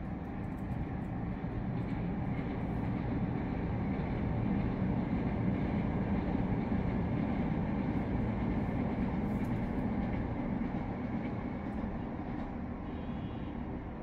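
LRT Line 1 light-rail train passing on the elevated track along Taft Avenue, heard from high above. A low rumble swells over several seconds, peaks mid-way and fades, over the steady hum of city traffic.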